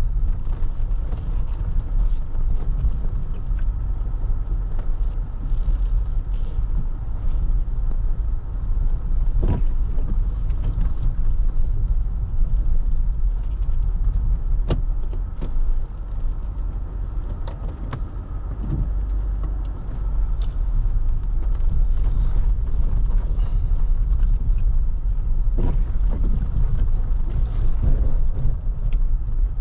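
Vehicle driving on a wet dirt road: a steady low rumble of engine and tyres, with scattered sharp clicks and knocks.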